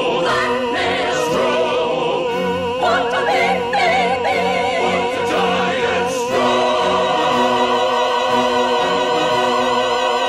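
Operatic singing with accompaniment, the voices carrying a wide vibrato. The notes move for the first six seconds or so, then settle into one long held chord.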